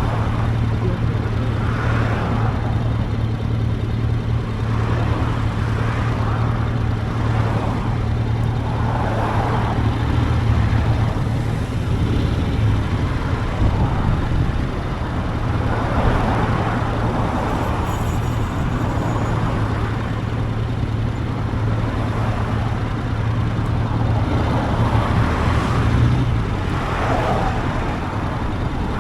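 Motorcycle engine running steadily while riding, a low hum under a rush of wind noise that swells and fades now and then.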